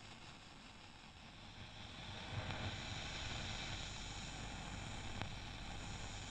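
Space-sound soundtrack built from NASA recordings: a steady wind-like hiss over a low rumble, growing louder about two seconds in.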